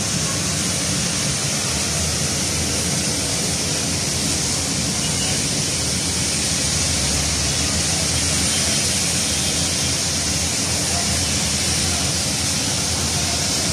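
Heavy rain falling with a steady hiss, over the low rumble of traffic on wet city roads.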